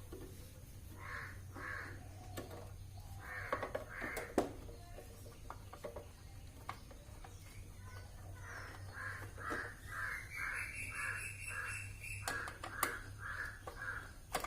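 A crow cawing again and again, first in short groups, then in a long even run of caws over the second half, with a few sharp clicks among them.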